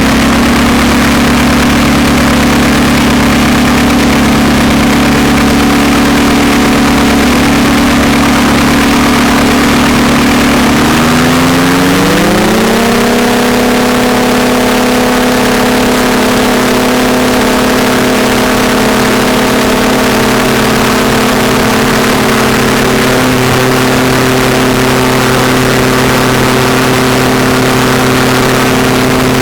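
Ultralight aircraft engine running steadily, then about eleven seconds in it speeds up smoothly over a couple of seconds and holds at a higher, steady pitch: the throttle opening up for takeoff.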